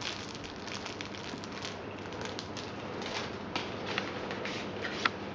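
Clear plastic bag and paper packaging rustling and crinkling as they are handled, with scattered light taps. A sharp click about five seconds in is the loudest sound.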